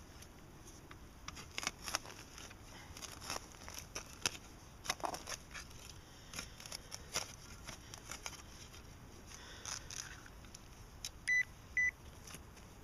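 Soil and leaf litter being scraped and dug with a hand tool, in irregular scrapes and knocks, then two short high beeps from a metal detector near the end, sounding off a target in the hole that the detectorist reads as iron.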